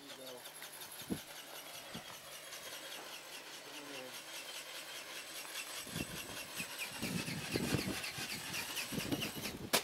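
Electric RC ornithopter with a brushless outrunner motor flying: a motor whine whose pitch sags and then climbs again, under a fast, even beat of the flapping wings. Gusty wind buffets the microphone in the second half, and there is a single sharp knock near the end.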